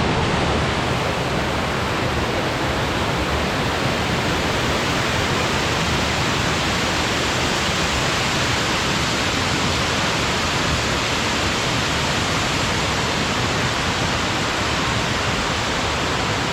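Waterfall: a steady, loud rush of falling and splashing water with no breaks.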